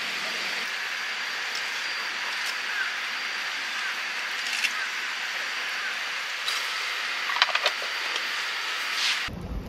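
Steady high outdoor hiss with a faint steady high tone and a few small bird chirps, over handling sounds at a camp table: water poured from a plastic bottle into a metal mess tin, then a few light clinks as the mess tin's lid is set on about seven and a half seconds in. Shortly before the end the hiss gives way to a low rumble.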